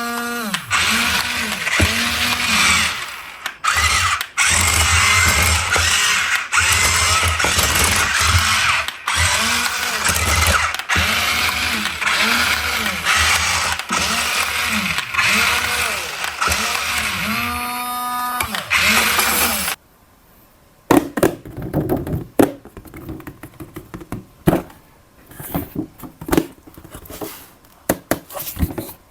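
Small electric motors of a toy RC construction vehicle whirring, their pitch rising and falling again and again as the toy is driven. The whir cuts off suddenly about two-thirds of the way through, and light clicks and knocks of the plastic toy being handled follow.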